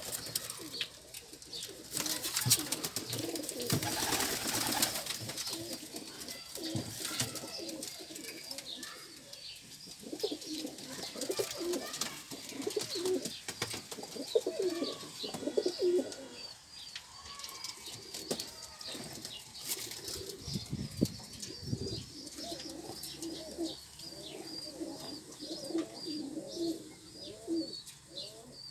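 Domestic pigeons cooing over and over in low rolling calls, with high chirps and some knocks and rustling among them.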